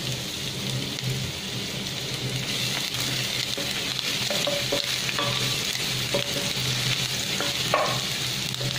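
Chopped ginger and garlic sizzling steadily in hot oil in a stainless steel pot, stirred with a wooden spatula that scrapes the pan bottom a few times. A steady low hum runs underneath.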